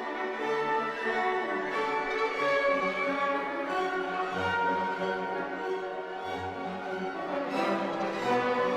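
Orchestral music with bowed strings playing slow, held notes.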